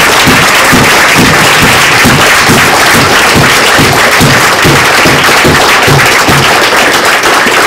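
Audience applauding, mixed with music with a steady low beat of about two pulses a second.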